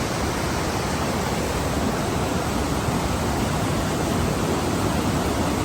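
Steady, even rushing of Whitewater Falls' upper cascade.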